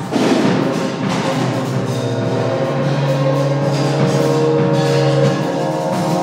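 Live experimental noise music: a dense, noisy wall of sound that opens with a loud, sudden hit. About two and a half seconds in, held low drone tones and a steadier mid tone come up under the texture, then ease off shortly before the end.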